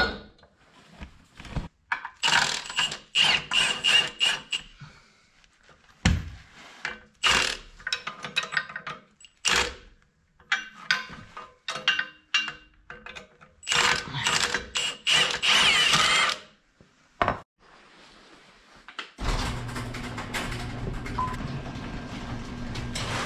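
Cordless drill-driver whirring in short bursts, between ratchet-wrench clicks and metal clanks, as bolts are run in to fit a tractor drawbar. About nineteen seconds in, a steady low hum takes over.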